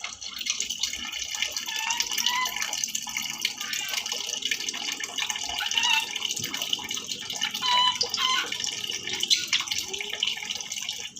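Tap water running steadily into a sink, a continuous splashing hiss. A few short high pitched sounds that bend up and down sound over it now and then.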